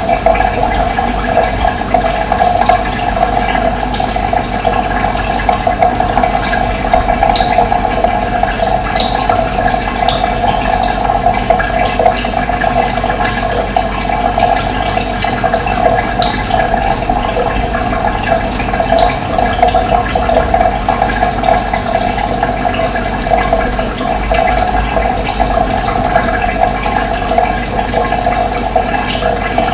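Steady rush of running water, with short faint high chirps of wild birds scattered through it.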